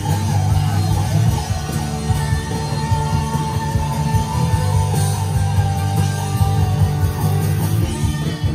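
A live pop-rock band playing, with guitar to the fore over a heavy, steady bass.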